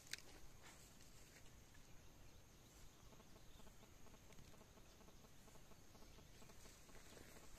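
Near silence: faint outdoor ambience, with one faint click just after the start.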